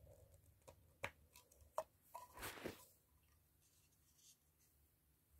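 Near silence, broken by a few faint plastic clicks and a brief rustle of hands handling the fire-alarm beacon and sounder base as they are fitted together.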